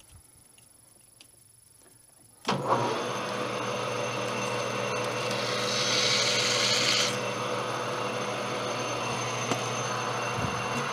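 A metal lathe's spindle starts up about two and a half seconds in and runs steadily with a motor and gear hum. From about five to seven seconds a hand deburring tool scrapes with a hiss against the edge of the spinning steel bushing's bore, breaking the sharp edge.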